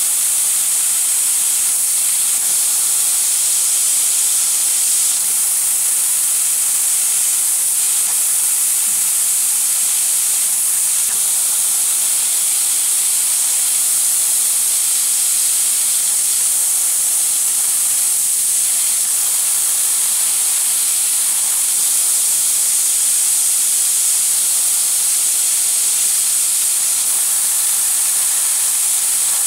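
Steady, loud hiss from a 2 kW IPG fiber laser cutting machine.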